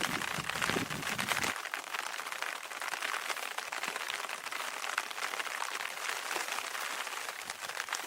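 Rain pattering steadily, a dense patter of fine drops; a lower rumbling sound underneath stops about a second and a half in.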